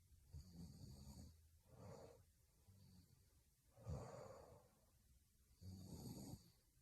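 A young woman snoring quietly in her sleep: four breaths, each a low buzzing snore, with the loudest about four seconds in.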